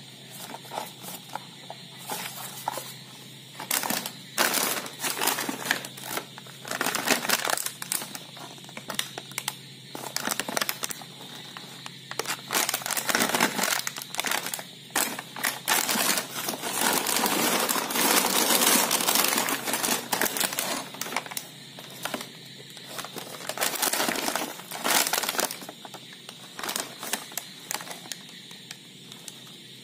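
Shiny plastic snack packets crinkling and rustling in the hands as they are picked up and turned over, in irregular bursts, with a longer stretch of continuous crinkling a little past halfway.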